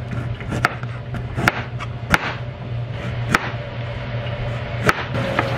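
About six sharp knocks at uneven intervals over a steady low hum.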